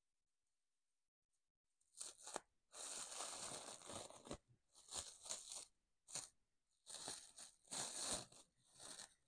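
Clear cling-film-type plastic wrapped around a small plant pot being crinkled and torn off by hand. It comes in several bursts of crackling, starting about two seconds in.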